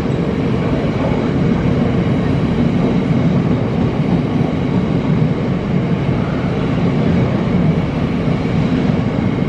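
Freight train of bogie tank wagons passing close by on the rails: a steady, loud rumble of wheels and wagons with no letup.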